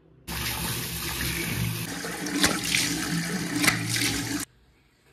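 Water running from a tap into a sink, with a couple of louder splashes as hands scoop water, as in washing the face. It starts suddenly just after the beginning and cuts off suddenly near the end.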